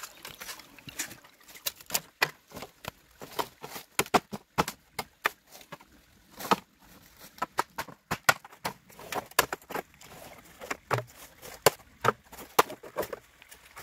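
A blade chopping on wood: a long run of irregular sharp chops, a few a second, with brief pauses.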